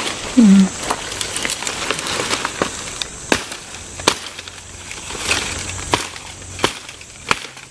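Dry sticks and twigs snapping and cracking at irregular intervals as they are broken and pulled from the forest floor, with dry leaf litter rustling. A short pitched vocal sound comes about half a second in.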